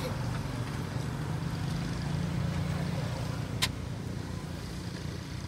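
Steady low hum of a running engine that eases off slightly after the middle, with one sharp click about three and a half seconds in.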